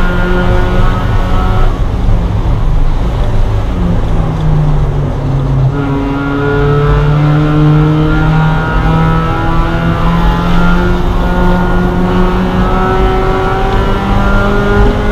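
Spec Miata race car's four-cylinder engine heard from inside the cabin over road noise. The engine note drops back for a few seconds about two seconds in, then comes back on hard about six seconds in and rises steadily in pitch as the car accelerates.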